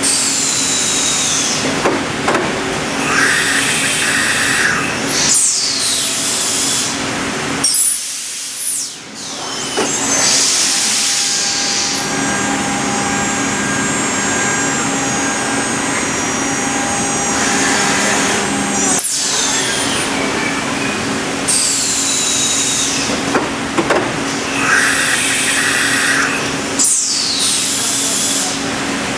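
Four CNC router spindles of a C.R. Onsrud E-Series machining center going through an automatic tool change. There are repeated hissing blasts of compressed air, and falling whines as the spindles slow down, over a steady machine hum. Through the middle a steady tone is held while the spindles are lowered.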